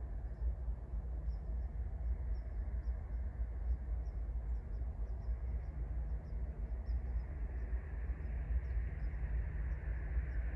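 Outdoor ambience at a railroad crossing: a steady low rumble, with faint, short, high bird chirps scattered throughout and a hiss that grows near the end.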